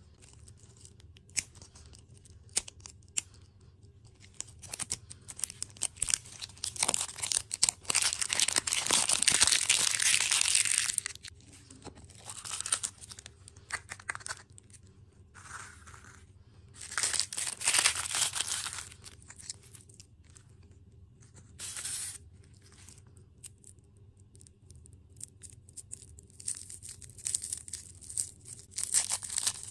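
Plastic food packaging being torn and crinkled open in several bouts, the longest and loudest about seven to eleven seconds in, with a few sharp clicks at the start.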